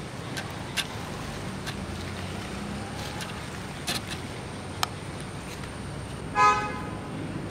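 Steady low rumble of road traffic, with a few faint clicks and a short vehicle horn toot near the end.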